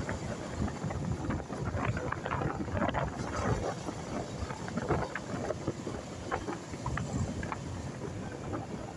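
Wind buffeting the microphone of a motorcycle riding at about 50 km/h, over the steady noise of its engine and tyres on the road.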